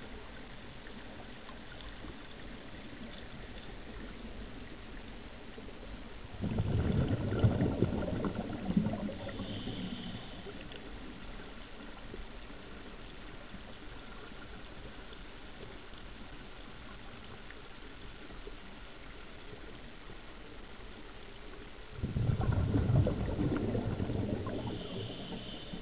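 Underwater: a steady rush of moving water, broken twice by a few seconds of loud, low bubbling from a diver's exhaled breath, once about six seconds in and again near the end.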